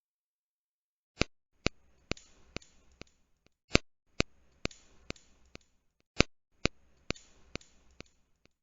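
Padlock-and-keys sound effect: sharp clicks in a group of five about half a second apart, the first the loudest, played three times over.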